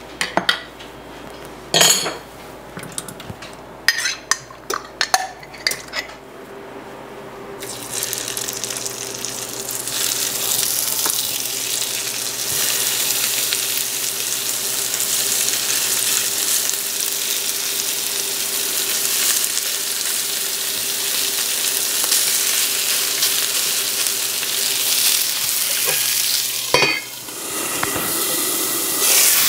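A few clinks of stainless pots and pans, then hamburger patties sizzling loudly and steadily in a hot cast iron skillet from about eight seconds in. Near the end there is a metal clank as the skillet is covered, and the sizzle carries on a little quieter.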